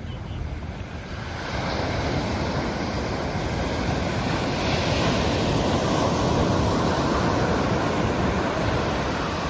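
Pacific Ocean surf: a wave breaking and washing up the beach, swelling from about a second and a half in and easing near the end, with wind buffeting the microphone.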